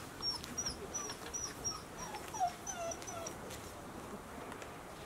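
A run of short, high chirping calls, about three a second, with a few lower falling whistled notes joining about two seconds in, from a bird or the puppy.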